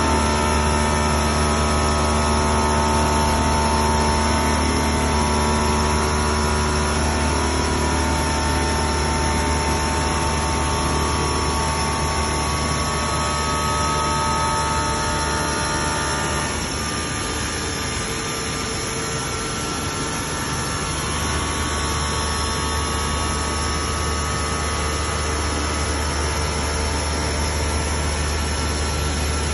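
CMS CNC glass work centre running, its spindle motor humming steadily with several fixed tones over a hiss. The low hum drops for a few seconds about halfway through, then comes back.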